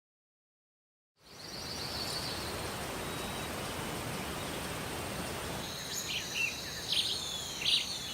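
Tropical rainforest ambience fading in after about a second of silence: a steady hiss with thin, steady high-pitched insect tones. About six seconds in, birds join with several short, sharp chirps.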